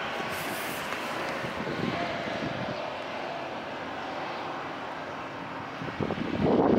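Steady drone of a Komatsu material handler's diesel engine and hydraulics as its grapple boom swings beside gondola cars, with a faint steady whine over the engine. Near the end, loud gusty wind noise hits the microphone.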